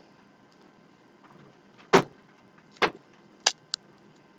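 Basketball trading cards being handled: a few short, dry sliding and tapping sounds as cards are moved, the first about two seconds in.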